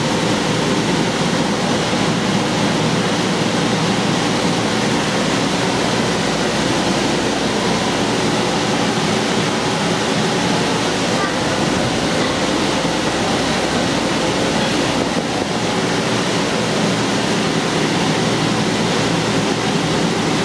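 Steady loud rushing of an inflatable bounce house's air blower, with faint voices underneath.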